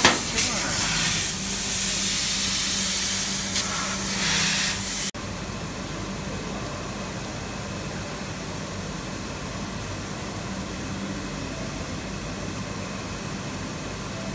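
Loud steady hiss over a low hum from the workshop machinery around a fiber laser tube cutting machine, with a sharp metal click near the start as cut square steel tube pieces are handled on the machine table. About five seconds in the sound cuts off abruptly to a quieter steady hiss and hum.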